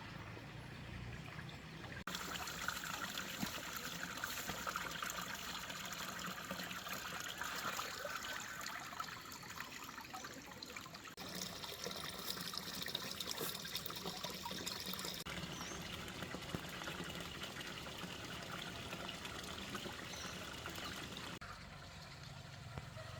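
Water trickling and splashing in a steady hiss, the sound changing abruptly several times.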